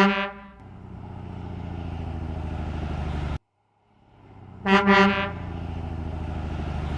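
Truck horn sounding in a quick burst of toots, then a truck engine running steadily as it fades in. The engine cuts off abruptly about three and a half seconds in, fades back up, and the horn toots again about five seconds in.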